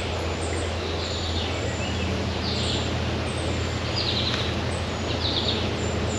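Woodland songbirds giving several short, high chirps over a steady background rush.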